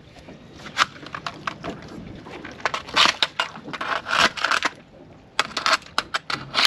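Barnacles being scraped and crushed off with the end of a landing-net handle: irregular crunching scrapes and sharp clicks, in louder clusters about three and four seconds in.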